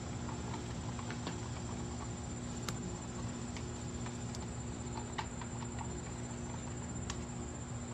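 A paintbrush stippling epoxy into fiberglass cloth, making faint, irregular light taps and clicks, over a steady low hum and a thin high tone.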